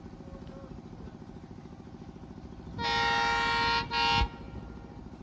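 WDM3A diesel locomotive's horn sounded as it departs: one blast of about a second, then a short second blast right after. Under it, the locomotive's ALCO engine runs with a steady low rumble.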